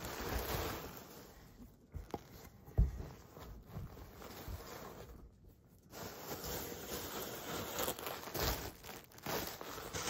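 Plastic bubble wrap crinkling and rustling as it is pulled off a bass guitar body, with a single thump about three seconds in and a short lull in the middle.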